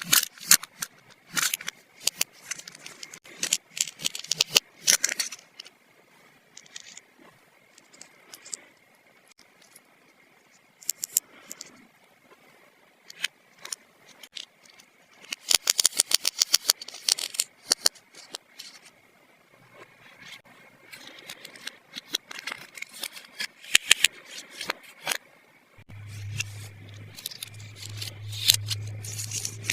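Small plastic toy pieces handled close to the microphone: bursts of clicks, taps and scrapes with quiet gaps between them. A low steady hum joins near the end.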